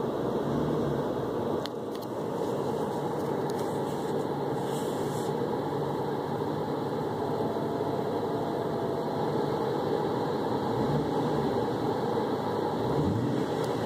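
2007 Jaguar XKR's supercharged V8 running, a steady mechanical whir with a faint whine in the middle stretch, a noise the owner suspects comes from a bad alternator.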